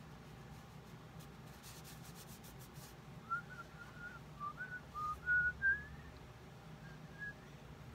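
A person whistling a tune, a run of short single notes stepping up and down, starting about three seconds in and trailing off near the end.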